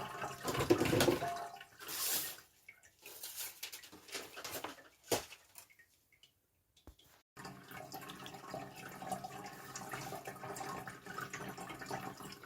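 Anko 3L pet water fountain running: water trickling and dripping into its bowl over the pump's steady hum. There are a few knocks in the first couple of seconds, and the sound drops to near silence for about two seconds a little past midway before the trickle and hum resume.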